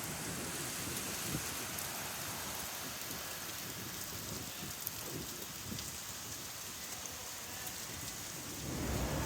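Typhoon rain and wind: a steady hiss of heavy rain, with gusts of wind buffeting the microphone that grow stronger near the end.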